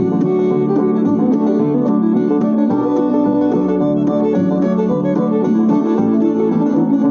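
Background instrumental music with plucked strings and a fiddle.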